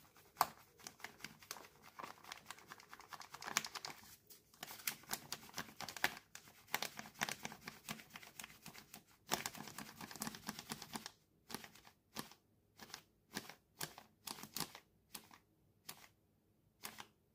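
Faint crinkling of a plastic packet of rice flour as it is squeezed and shaken to pour flour into a measuring jug. The crackle is dense for about the first ten seconds, then thins to separate crinkles as the last bits are tipped in to make up the weight.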